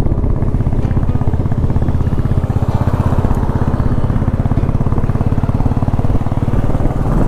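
Motorcycle engine running steadily under way, its rapid, even firing pulses heard close to the microphone.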